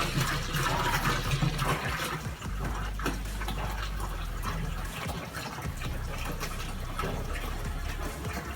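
Water pouring and splashing in a steady rush, with a continuous low hum underneath.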